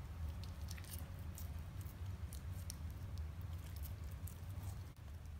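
German Shepherd licking and chewing a chunk of raw steak: scattered wet smacks and clicks, over a steady low rumble.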